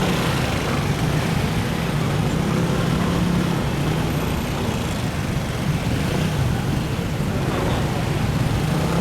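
Steady vehicle and traffic noise with a low engine hum, slow-moving traffic in a jam.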